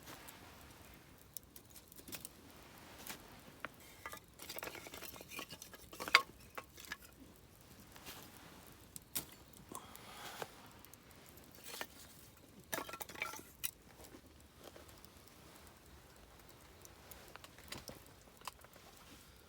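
Wood campfire crackling and popping: irregular sharp cracks over a soft hiss, with the loudest pop about six seconds in and bursts of quicker crackling around it and again past twelve seconds.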